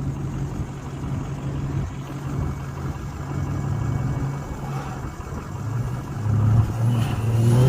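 Truck engine running with a steady low hum that grows louder from about six seconds in, as the truck is driven hard up a snowy off-road trail.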